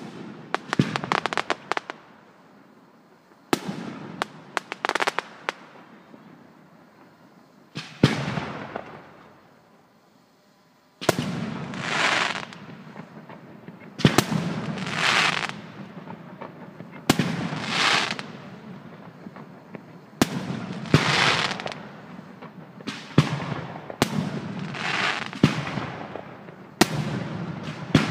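Aerial fireworks shells bursting overhead in a series of sharp bangs, each followed by about a second of hissing crackle. There is a brief lull about ten seconds in. After that the bangs come steadily, roughly every three seconds.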